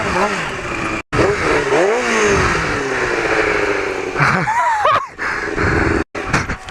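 Motorcycle engine revving, its pitch rising and falling, with the sound cutting off abruptly a few times where short clips are spliced together.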